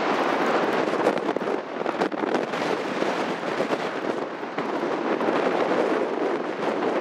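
Heavy storm surf breaking and washing up the beach under strong nor'easter wind, a steady loud rush. Gusts hit the microphone in sharp crackles, most between one and three seconds in.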